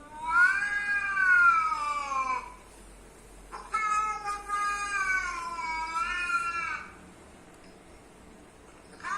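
A cat giving two long, drawn-out meows, each two to three seconds long, the first rising then falling in pitch and the second wavering. A third meow begins right at the end.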